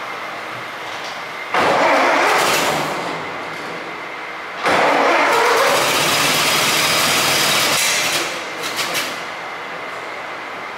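1925 Ford Model T four-cylinder engine being cranked over in two loud bursts, the second longer, without starting, over a steady background hum.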